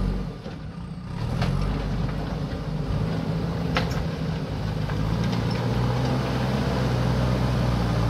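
JCB backhoe loader's diesel engine running under load as the machine drives forward down the slope with its front bucket lowered, the engine note steadying and growing louder from about a second in. A couple of sharp knocks sound over it.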